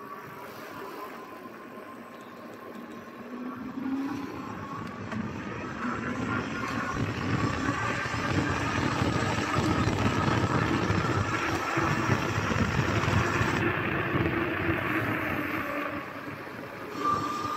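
Gunai MX25 electric bike under way on a road: wind rushing over the microphone and tyre noise grow louder as it picks up speed over the first several seconds, then hold steady. A faint electric-motor whine rises slightly in pitch as it speeds up.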